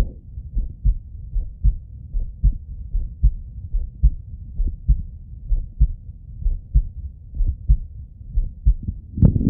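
A man's heartbeat heard through a Littmann stethoscope: steady paired lub-dub thumps, a little more than one beat a second. Near the end there is a brief louder noise.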